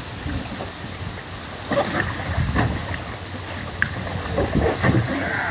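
Pool water splashing and sloshing around a kayak as a swimmer hauls himself up out of the water onto its deck, with a few sharp knocks against the hull.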